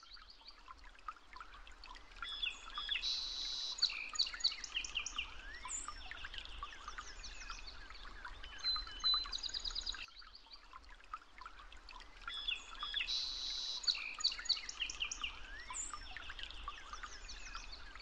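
Birds chirping and trilling over a faint steady hiss, in a nature ambience loop that repeats about every ten seconds.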